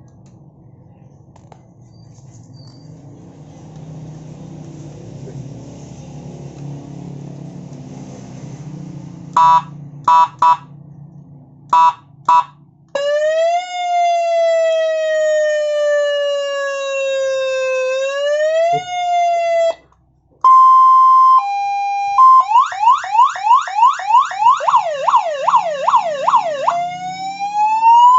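Six-tone electronic police horn and siren unit being tested. After a faint low hum come about five short horn blasts. It then cycles through its siren tones: a slow wail falling and rising, a two-tone hi-lo, a fast yelp of about four cycles a second, and a rising wail near the end.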